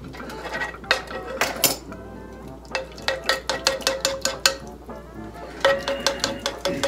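A metal tablespoon stirring in a nonstick frying pan, clinking and scraping against the pan over and over as honey is mixed into lemon juice.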